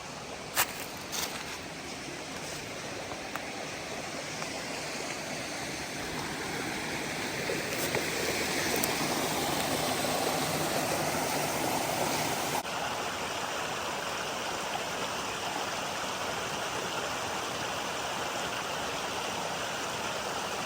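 Steady rushing of cascading creek water, swelling in the middle and shifting abruptly about two-thirds of the way through. A couple of sharp clicks come near the start.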